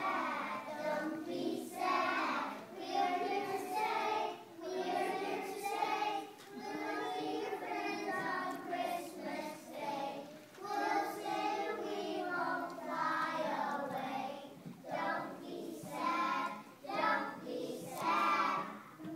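A group of young children singing a song together, in phrases with short breaths between them.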